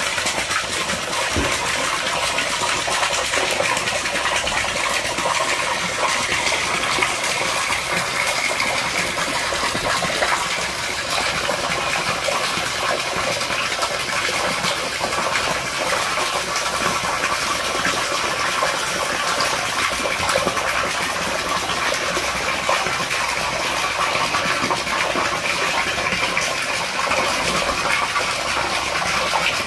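A stream of water pouring steadily into a shallow inflatable pool, splashing on the water surface.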